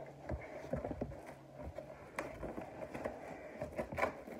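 Hands handling a cardboard shipping box on a wooden table, fingers picking at the flaps: scattered light taps, scrapes and rustles of cardboard.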